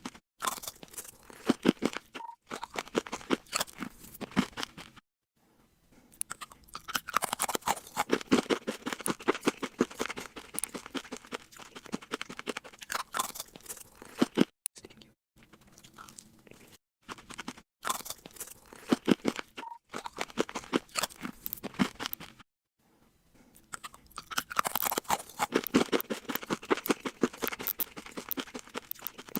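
Loud close-up crunching and chewing of crisp food, in runs of rapid crackly bites broken by short pauses.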